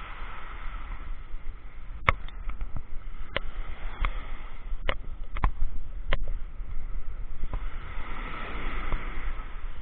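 Sea waves washing in, swelling twice, with a steady low rumble of wind on the microphone. About seven sharp clicks are heard in the middle stretch.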